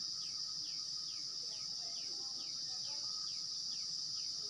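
Steady high-pitched insect trill, typical of crickets, running throughout, with a short falling chirp repeating about twice a second.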